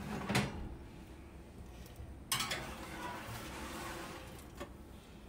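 A metal roasting pan clanks onto an oven's wire rack, then about two seconds in it scrapes along the rack as it is pushed into the oven.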